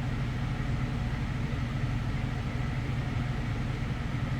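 Steady low machine rumble with a fine, fast pulsing and an even hiss above it, unchanging throughout.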